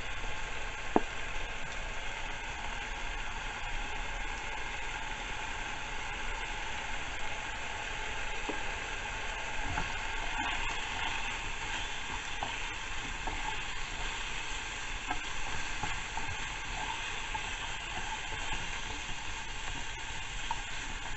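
Diced chicken sizzling steadily in oil in a skillet, with a utensil stirring the pieces and light knocks against the pan now and then; one sharp click about a second in.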